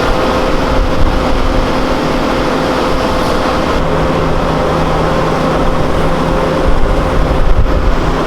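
A machine running steadily, a constant droning hum with a higher tone over it, deepening slightly about halfway through.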